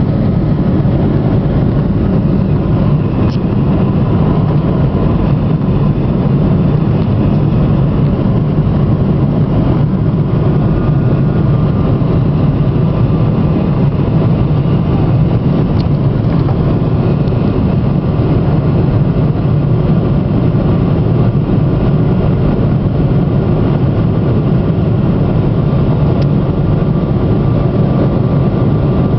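Steady in-cabin noise of a Boeing 777's Rolls-Royce Trent 800 jet engines at climb power: an unchanging low drone with a faint high whine.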